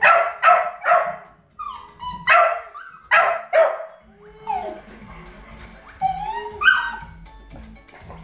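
Jack Russell Terrier barking in sharp, loud barks, about six in the first four seconds, in reaction to dogs on the TV screen, with quieter calls later on. Television music and sound run underneath.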